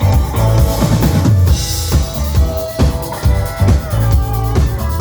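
A band playing live, loud, with the drum kit to the fore: steady bass drum and snare hits under sustained instruments, and a bright hiss of cymbals about a second and a half in.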